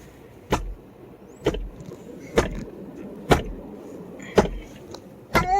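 Car windshield wipers thumping at the end of each sweep, about once a second, over steady road noise inside the car while driving in snow.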